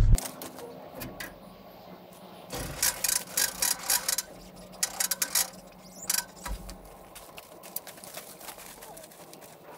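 Footsteps crunching over dry corn stubble as a fuel hose is dragged along, with light metallic clinks from the hose nozzle. The crunches and clinks come in clusters between about two and a half and five and a half seconds in, over a faint steady hum.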